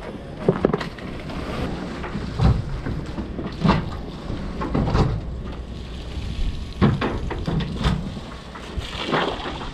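Steady low rumble of wind on a body-worn GoPro's microphone, with about seven irregular heavy thumps and crunches, a second or two apart, of footsteps over burnt debris.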